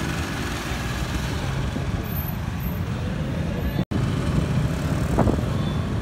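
Street traffic noise: a steady low rumble of passing vehicles. It cuts out for an instant about four seconds in.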